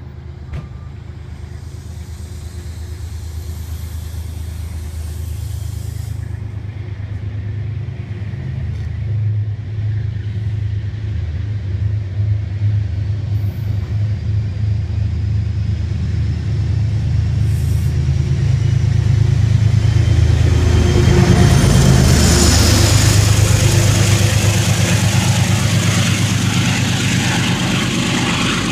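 Diesel engine of a GE Genesis P32AC-DM locomotive pushing a Metro-North push-pull commuter train out of the station, with the coaches' wheels running on the rails. The low engine drone grows steadily louder as the locomotive nears and is loudest in the last third.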